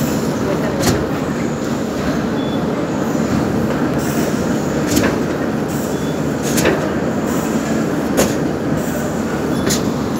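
Steady loud rumble of the cement-bag loading conveyor and plant machinery. Sharp knocks stand out about a second in, then roughly every second and a half from halfway on, as the bags are handled and stacked.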